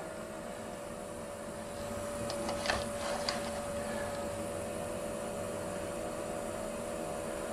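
Steady electrical hum, with a few light clicks and taps between about two and three and a half seconds in as a dial indicator on a CNC router is handled and swung around by hand.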